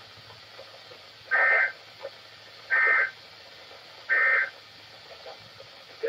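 NOAA Weather Radio receiver sounding the three SAME end-of-message data bursts: short, harsh two-tone digital screeches repeated about every 1.4 seconds over faint hiss, marking the close of the EAS tornado-warning message.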